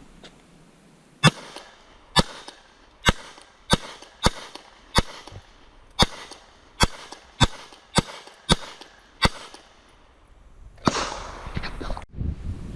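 A gun fired about a dozen times in a quick, slightly uneven series, roughly one shot every two-thirds of a second. Near the end comes a short burst of rushing noise.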